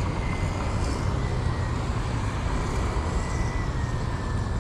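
Steady low rumble of road traffic, with cars and trucks passing on an open road.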